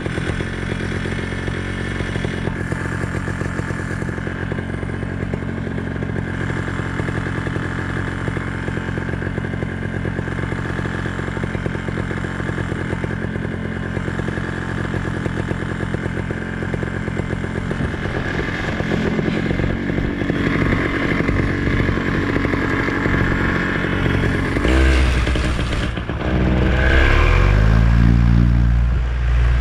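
Vittorazi Moster two-stroke paramotor engine running steadily at part throttle, then opened up to full power for a no-wind takeoff about 25 seconds in, much louder, its pitch rising.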